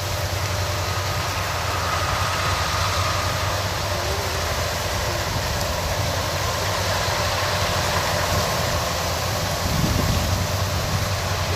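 Kubota DC-93 combine harvester running steadily: a constant diesel engine hum under the even rushing noise of its machinery.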